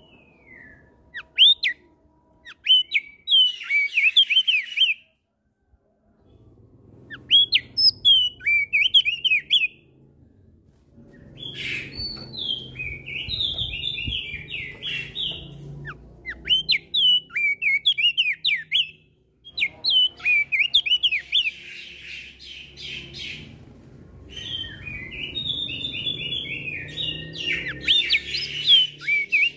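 Crested white-eye (opior jambul) singing in fast runs of chirping, warbling notes, with other birds answering. The song comes in several bursts separated by short pauses.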